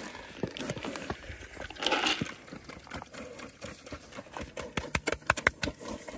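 Pig eating feed from the ground, chomping and smacking with quick wet crunching clicks that come thickest near the end, and a louder burst about two seconds in.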